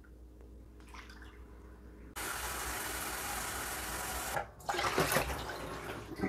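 Water running hard from a kitchen tap for about two seconds, starting and stopping abruptly, then running again more unevenly with a few light knocks.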